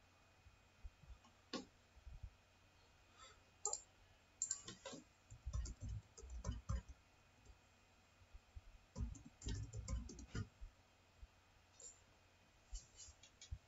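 Faint computer keyboard typing: key clicks in a few irregular short bursts as a username and password are typed in.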